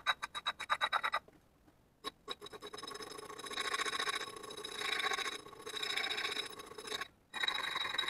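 A small needle file rasping against the metal handle joint of an old flat iron, with a faint metallic ring. Quick back-and-forth strokes, about five a second, stop about a second in. After a short pause the filing resumes as a steadier scraping, breaks off briefly near the end, and starts again.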